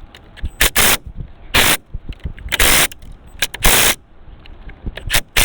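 Compressed-air tool fired in a series of short, loud bursts, about one a second.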